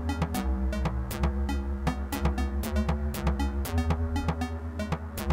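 Electronic groove from an Elektron Model:Cycles groovebox: sharp drum-machine hits in a steady rhythm over a deep pulsing bass, with pitched synth tones between.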